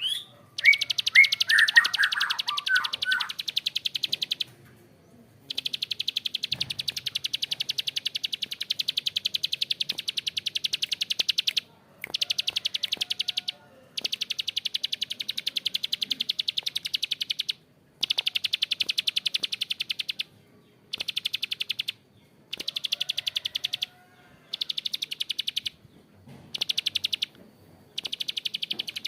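Prenjak klik bird giving long, harsh, very fast ticking trills (ngebren) in runs of several seconds with brief pauses between them, after a few falling chirps near the start.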